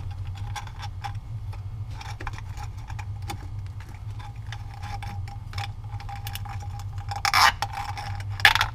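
Nylon zip tie being fed through its head and ratcheted tight, a run of small irregular clicks, with two short, louder zipping rasps near the end as it is pulled through.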